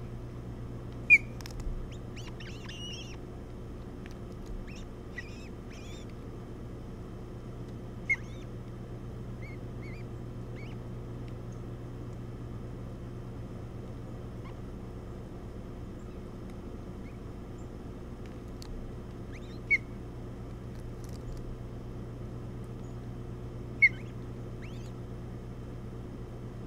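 Ospreys at the nest giving a handful of short, sharp, high chirps spaced several seconds apart, with a few fainter chirps early on. Under them runs a steady background hum.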